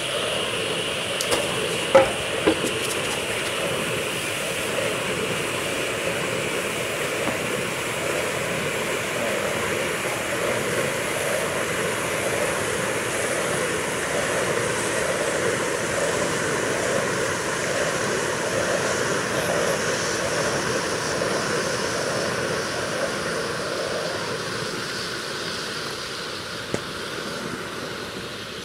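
Many pyrotechnic lances of a firework lance picture burning together with a steady hiss, with a couple of sharp pops about two seconds in and another near the end. The hiss thins out toward the end as the lances burn out.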